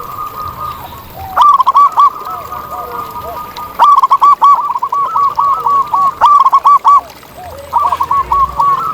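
Zebra doves cooing: fast runs of short, arching notes, in three bursts, the longest from about four to seven seconds in, with fainter, lower notes between the runs.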